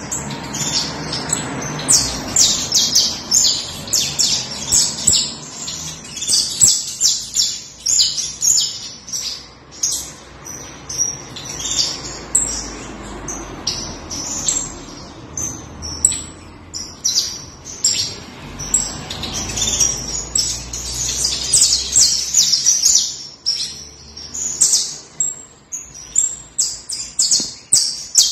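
Saffron finch (canario criollo) singing: fast runs of high, sharp chirps and trills, one phrase after another with brief pauses between.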